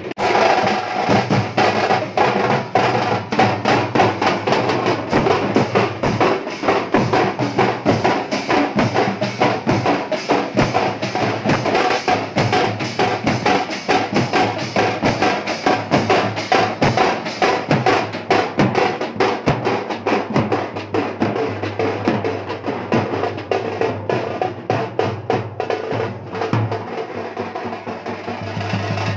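Teenmaar street drum band playing a fast, dense beat: large bass drums and stick-played drums struck in quick rolls.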